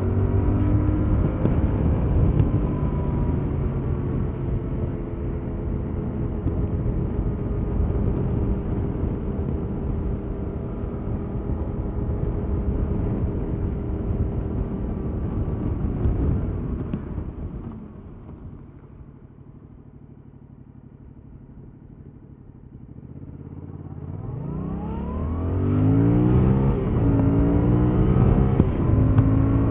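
Stock exhaust of a 2021 Yamaha MT-07's 689 cc parallel-twin engine while riding: it runs at steady revs, falls much quieter for several seconds past the middle, then revs up through the gears near the end, the pitch climbing and dropping back at each shift.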